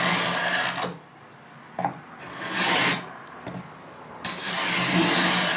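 Hand tool worked along wood in three long, slow rasping strokes, with short pauses between them.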